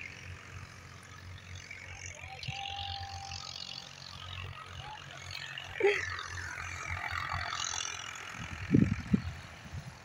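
Low, steady rumble of a vehicle driving on a rough road, with a few loud, heavy thumps near the end.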